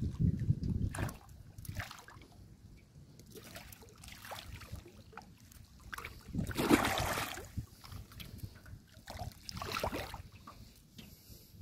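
A hooked alligator gar thrashing and splashing at the surface beside the boat, in several bursts. The biggest splash comes a little over six seconds in, when its tail slaps up out of the water, and another follows near the end.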